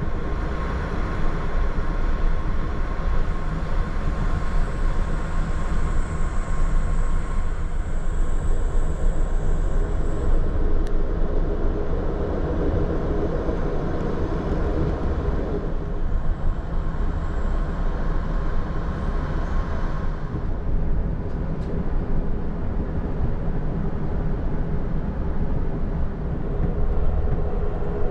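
Steady rumble and rush of a passenger train running along the track, heard from inside an Amtrak Viewliner II sleeping car, with a faint high whine for a few seconds near the start.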